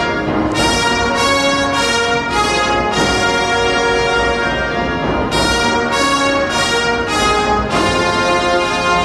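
Orchestral background music led by brass, with runs of short repeated chords between longer held ones.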